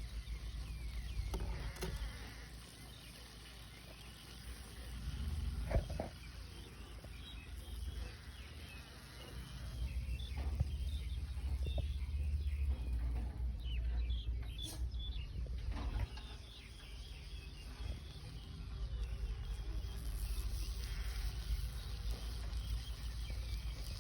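Food being chewed, with small crunching clicks, over a steady low rumble.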